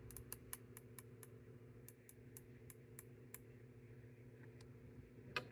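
Quick run of light metallic clicks, about five a second, with a short pause partway through, then one sharper click near the end: 5.56 cartridges being pressed into an AR-15 magazine.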